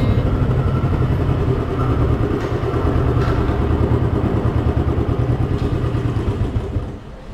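Royal Enfield Thunderbird 350's single-cylinder engine running as the motorcycle is ridden slowly, a steady low drone that falls quieter near the end as the throttle comes off.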